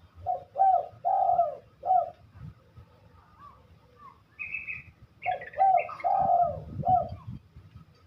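A dove cooing in two phrases of about four notes each, one near the start and one in the second half. A short higher chirp comes between them.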